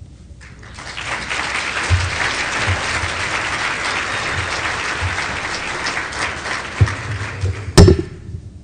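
Audience applauding, building up about a second in and dying away near the end. A single sharp thump near the end is the loudest sound.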